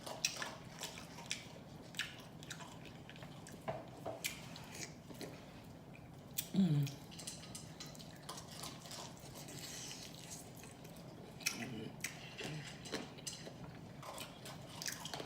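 Close-miked chewing with wet lip-smacking: irregular short smacks and clicks of a mouth eating, plus a short falling vocal sound about six and a half seconds in.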